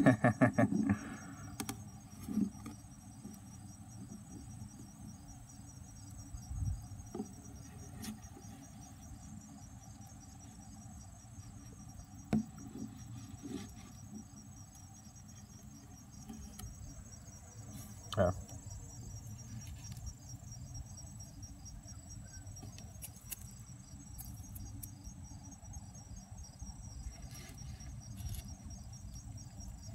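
Steady high-pitched insect trill, a fast even pulsing that runs on without a break, with a few soft knocks of the phone being handled, one near the start and one about two-thirds of the way through.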